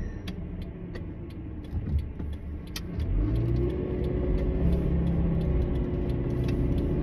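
Car driving: engine and road noise, a steady low hum that grows louder about three seconds in.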